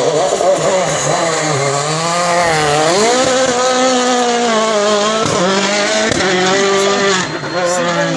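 Turbocharged four-cylinder World Rally Car engine revving hard through a hairpin, its pitch rising and falling again and again with throttle and gear changes. Near the end the sound briefly dips before a second rally car's engine is heard.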